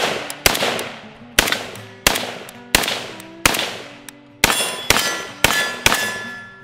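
AKM rifle in 7.62×39 mm fired semi-automatically: about ten sharp shots at a steady, unhurried pace, roughly one every two-thirds of a second. A metallic ringing hangs on between the shots.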